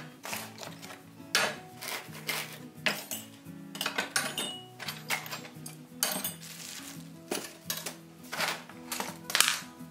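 Rusty iron buggy hardware (bolts, straps and fittings) clanking and clinking as it is picked up and dropped into a metal cart tray, in repeated irregular knocks, with background music underneath.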